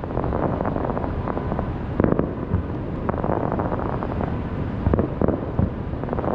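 Aerial fireworks shells bursting, a string of sharp booms several times a second, over steady wind noise on the microphone.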